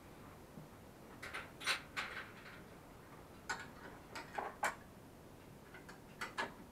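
Light clicks and taps of hands working on the headlight wiring of a children's quad bike, coming in three short clusters.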